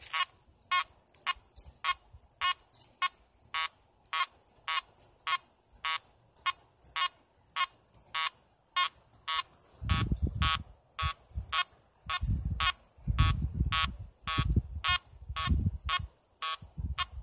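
Makro Multi Kruzer metal detector in its deep mode at 5 kHz, beeping a short high tone about twice a second as the coil sweeps back and forth over a dime buried about 10 inches down. From about ten seconds in, low thumps and rumbling mix in with the beeps.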